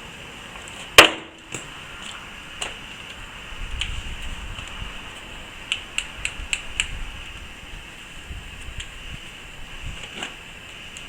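Handling noises: one sharp, loud knock about a second in, then light clicks and knocks, several close together in the middle, over a steady hiss.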